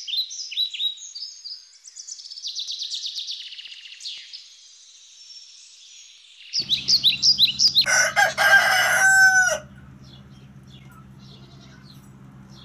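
Small birds chirping and trilling in quick high notes for the first six seconds or so, then a rooster crowing once, loudly, about eight seconds in, the call falling in pitch at its end, over a steady low hum.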